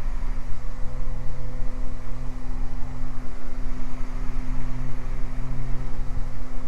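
Twin piston engines and propellers of a Beechcraft Baron droning steadily in climb, heard from inside the cabin, with a constant low hum and rushing noise.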